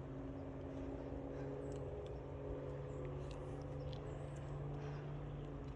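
A machine's steady low hum with a few overtones, which stops just before the end, with a few faint high chirps over it.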